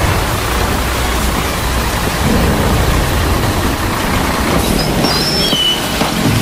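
Steady hiss of rain with a low rumble underneath. A few short, high chirps come about five seconds in.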